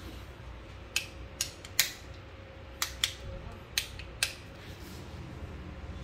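A series of about seven sharp, irregular clicks and taps in the space of three seconds, over a faint steady room hum.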